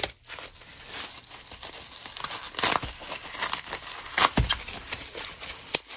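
Plastic bubble wrap crinkling and rustling as it is torn open by hand, with irregular crackles and a few sharper rips.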